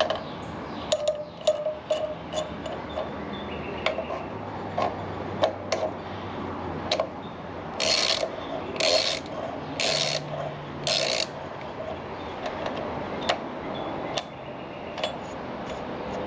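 Hand ratchet with a 10mm socket clicking while bolts are worked loose on a small engine, amid scattered clicks and knocks of tools and parts. Near the middle come four short bursts of fast ratchet clicking, about a second apart.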